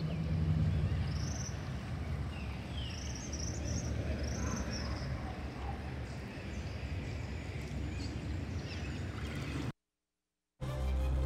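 Steady rush of muddy floodwater flowing through a flooded street, with a low rumble, and short bird calls several times over it. The sound cuts off suddenly near the end.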